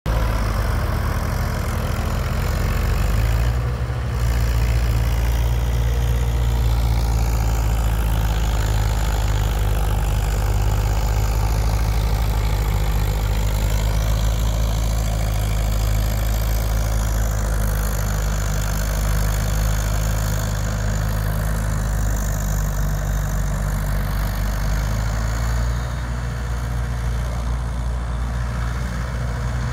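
Diesel engines of a Swaraj 744 FE and a Mahindra 575 DI XP Plus tractor running steadily under load as they pull land levellers across loose soil, with a deep, even note that steps up briefly about four seconds in.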